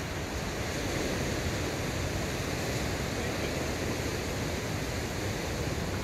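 Steady outdoor rushing noise with no distinct sound event standing out.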